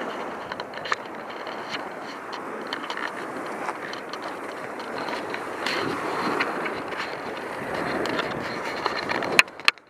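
Footsteps crunching on sand and pebbles over a steady rush of wind and small lake waves washing on the shore. Two sharp knocks near the end.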